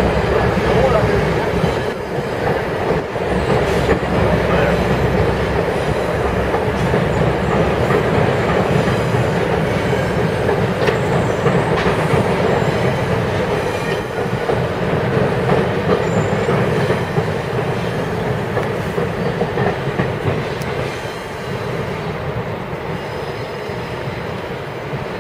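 GO Transit bilevel commuter train rolling past on the tracks below, a steady rumble of wheels on rail that grows quieter near the end as the last car moves away.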